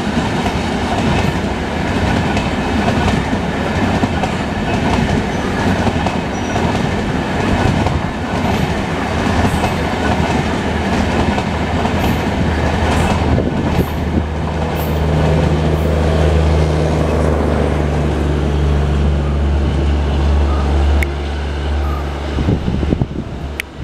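Coaches of an Indian Railways express train rolling past at speed, a continuous rumble with the clickety-clack of wheels over rail joints. In the second half a steady low hum joins in as the rear power car with its diesel generator passes, and the noise falls away near the end as the tail of the train goes by.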